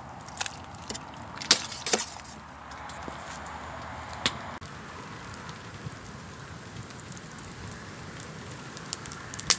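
Wood campfire burning with a steady hiss and a few sharp pops, the loudest in the first couple of seconds.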